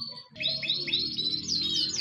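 Caged domestic canary singing: after a brief pause, a run of repeated whistled, sweeping notes, about four a second, quickening toward the end. A low steady hum lies underneath.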